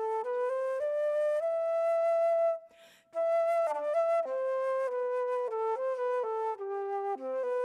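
Solo flute playing a melody: quick stepping notes with a few held ones, and a short break for breath about three seconds in.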